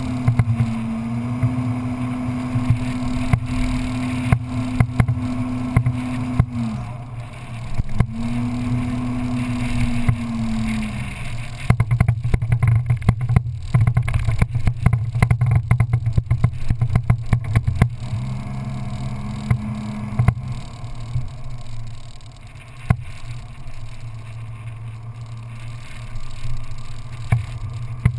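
Off-road vehicle's engine running as it drives over a sandy dirt track, its note dropping and picking up again a couple of times in the first half. A bumpy stretch in the middle fills the sound with rapid knocks and rattles.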